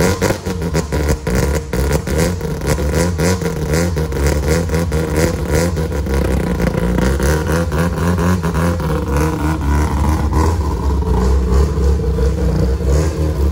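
Mazda RX-7 FC's naturally aspirated 13B rotary engine running just after start-up, idling through its exhaust.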